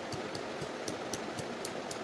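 Steady rushing of flowing river water, with irregular sharp crackles, several a second, on top.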